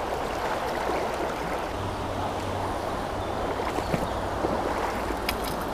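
Shallow river running fast over stones and weed: a steady rush of water, with a few faint ticks near the end.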